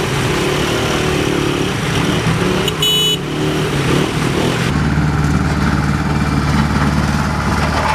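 Heavy road-works machinery engines running, with a short high beep about three seconds in; about halfway through the sound changes to a steadier, deeper engine drone.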